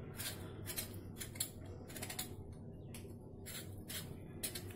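A small kitchen knife scraping the thin skin off a pointed gourd (parwal), in a series of short, faint scraping strokes roughly every half second.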